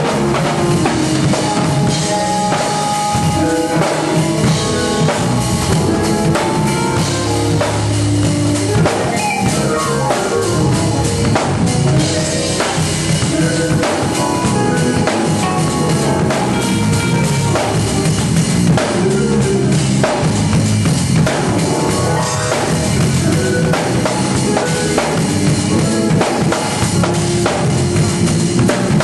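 Acoustic drum kit played live, with snare, bass drum and cymbals, over held notes from other instruments.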